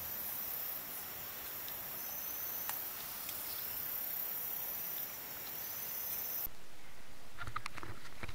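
Night insect chorus of crickets and other insects: a steady high-pitched hiss, with a thin high call held for under a second twice. It cuts off abruptly about two-thirds of the way through, leaving a few faint knocks.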